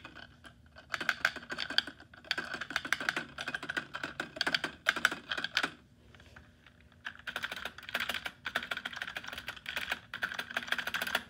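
Computer keyboard spacebar pressed rapidly over and over, its stabilizers taken out, giving quick runs of sharp clicks. The clicking stops for about a second around six seconds in, then resumes.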